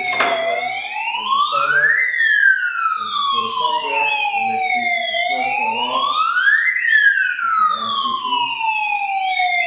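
Electronic fire alarm siren wailing: a tone rising quickly, then falling slowly, repeating about every four and a half seconds, with a fainter second sweep running alongside.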